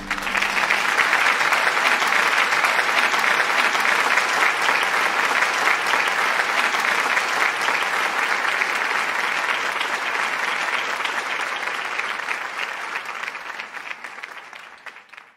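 Crowd applauding steadily, then fading out over the last few seconds.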